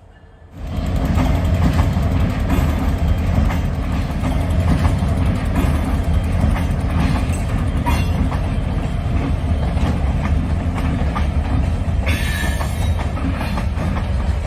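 Canadian Pacific freight train passing close by: a low, steady locomotive rumble under the clatter of wheels over the rails, cutting in abruptly about half a second in. About twelve seconds in a brief, harsher high-pitched wheel noise rises over it.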